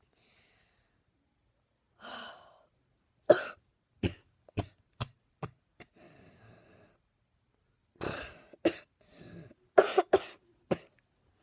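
A young man coughing in two fits of short, sharp coughs, about five in the first and four in the second, each fit starting after a breath in.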